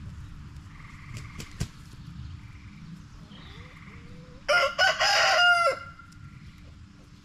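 A rooster crows once, loudly, about four and a half seconds in: two short notes and then a longer held one. Soft hen clucks come before it, with a sharp click about one and a half seconds in.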